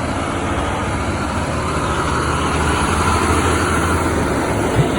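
Semi-truck driving past, its diesel engine rumble and road noise swelling to a peak around three seconds in, with no horn sounded. A brief thump near the end.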